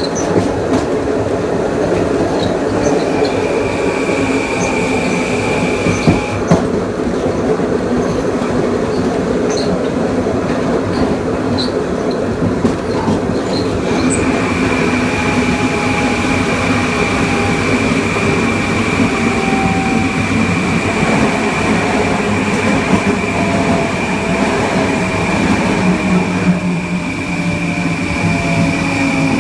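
Kawasaki M9 electric multiple unit running, heard on board: the MELCO IGBT-VVVF inverter's steady high-pitched whine drops out about six seconds in and returns about halfway through. Under it are the AC traction motors' faint gliding tones and steady wheel-on-rail running noise, with occasional clicks.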